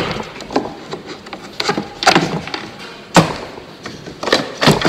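Wooden knocks and clatter from a wooden beehive frame assembly jig as its spring and keeper boards are taken off to free ten assembled frames. The knocks come singly at uneven gaps; the sharpest lands about three seconds in.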